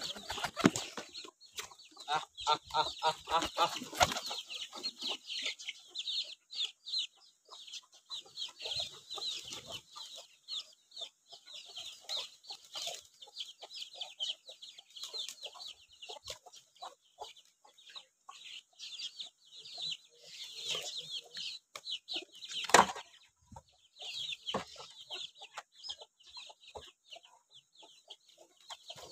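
Chickens clucking, with steady high chirping from birds all through. A few sudden wing flaps come from pigeons being handled, the loudest near the start and past the middle.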